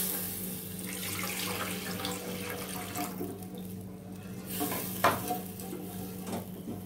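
Water poured from a bowl into a non-stick pan of fried spice paste, splashing steadily for about three seconds, then stirred in with a slotted spatula, which knocks against the pan a few times near the end.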